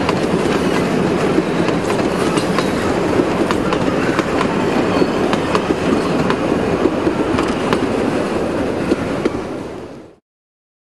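Wooden carriages of a 2 ft 6 in narrow-gauge train rolling by, a steady rumble with wheels clicking over the rail joints. It fades out to silence about ten seconds in.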